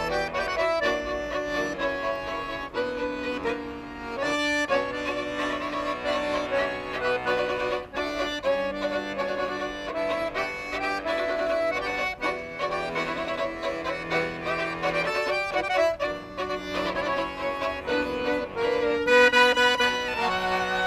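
Violin and piano accordion playing a tune together. The bowed violin melody runs over held low accordion notes.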